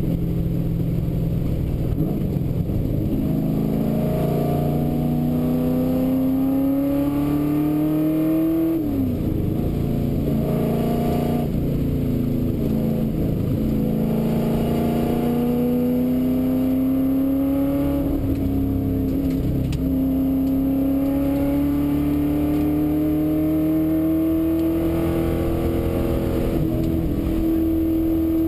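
The V8 engine of a 1971 Ford XY Falcon GT replica rally car, heard from inside the cabin as it runs hard. The revs rise, fall sharply at a gear change about nine seconds in, then climb slowly and level off near the end.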